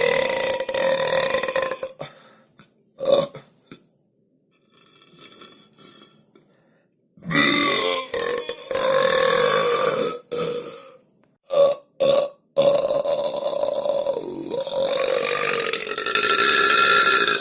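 A series of long, drawn-out belches, each held on a steady pitch for a couple of seconds or more, with a few short burps between them; the last runs about five seconds.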